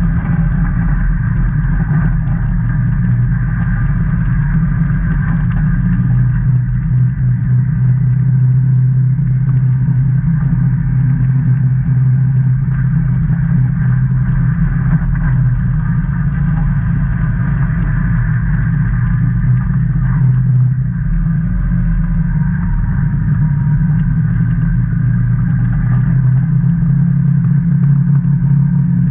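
Can-Am Maverick Trail 800 side-by-side's V-twin engine running steadily as it drives along a gravel trail, a low steady drone that eases briefly about two-thirds of the way through and then picks up again.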